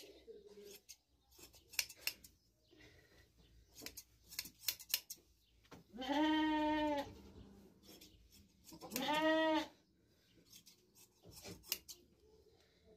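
A sheep bleating twice while being shorn by hand: a call of about a second some six seconds in, and a shorter one three seconds later. Around the calls, hand shears snip through the fleece in short clicks.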